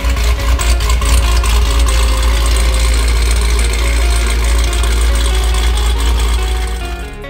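Dodge Challenger's engine idling with a loud, deep rumble, cut off suddenly near the end.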